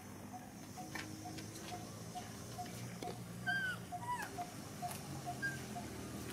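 Young macaques give a few short, arching squeaks about halfway through, over a steady run of short low piping notes repeating about four or five times a second.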